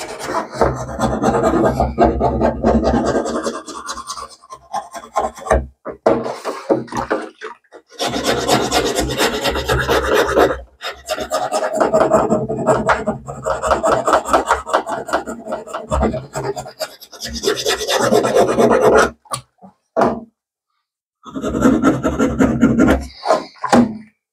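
Round needle file rasping back and forth in quick strokes, cutting a band groove into a G10 slingshot frame. The filing comes in runs of several seconds, broken by short pauses.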